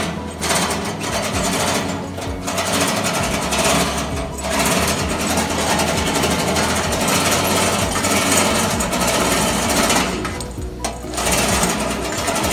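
Factory machinery running with a fast, continuous mechanical rattle that drops away briefly a few times.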